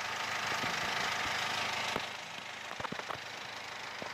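BMW N47 four-cylinder diesel engine idling steadily, with a few light clicks about three seconds in.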